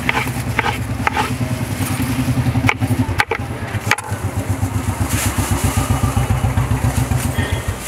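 A motorcycle engine idling, a fast steady low pulsing that cuts off near the end. A few sharp knocks sound over it.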